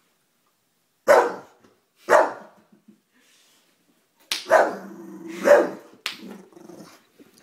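English bulldog barking and growling in fright at someone chewing gum. Two sharp barks about a second apart, then after a pause a low growl with two more barks over it, and growling again near the end.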